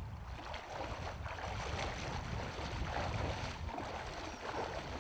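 Shallow river water sloshing and splashing irregularly around a landing net holding a trout, with a steady rumble of wind on the microphone.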